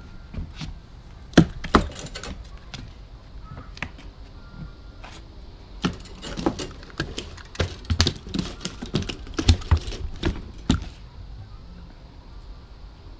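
A landed largemouth bass flopping on wooden dock planks: irregular slaps and knocks, two sharp ones about a second and a half in, then a dense run for several seconds from about six seconds in.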